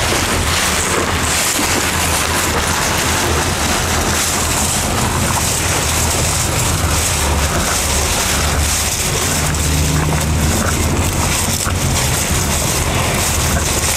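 Cattle chewing and tearing elephant grass at a trough, a dense, continuous crunching and rustling, over a steady low rumble.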